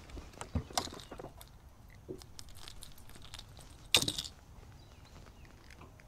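Light clicks and rattles as a bluegill hooked on a topwater popper is reeled to the boat and lifted aboard, with one sharp, loud clatter about four seconds in.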